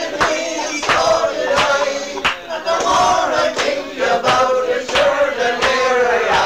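Men's voices singing an Irish traditional song together, as on a pub singing session, over a regular beat of sharp knocks about three every two seconds, heard through an old cassette recording.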